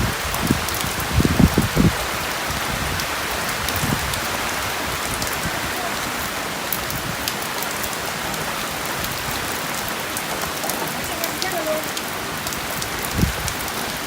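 Heavy rain falling steadily in a dense hiss, with a cluster of low thumps between one and two seconds in and another near the end.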